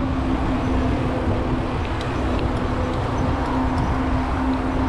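Steady wind noise on the microphone and tyre rolling noise from a mountain bike ridden along a smooth highway, with a steady low hum underneath.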